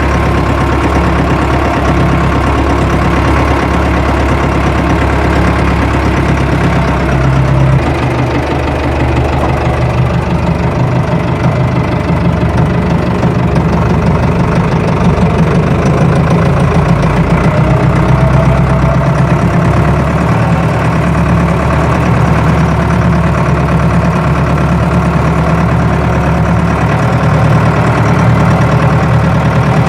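Tractor engine running steadily at a loud, even level, its note shifting about eight seconds in.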